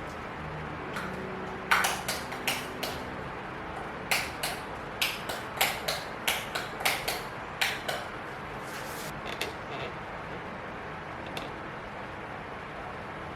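Small hard items being handled and set down: a run of sharp clicks and light knocks, about fifteen of them over several seconds, thinning out near the end, over a steady faint hiss.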